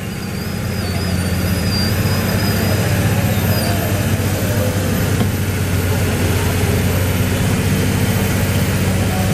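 Fendt 939 Vario tractor's six-cylinder diesel engine pulling a weight sled under full load: a steady deep drone that builds over the first two seconds and then holds, with a faint high whistle over the first few seconds.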